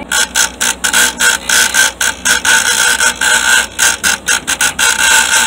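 A small power tool's whine switched on and off in rapid short bursts, several times a second, with sharp clicks at each start and stop.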